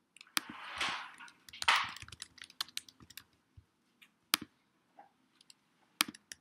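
Computer keyboard typing and mouse clicks: scattered sharp clicks, some single and some in quick runs. Two short hisses come in the first two seconds.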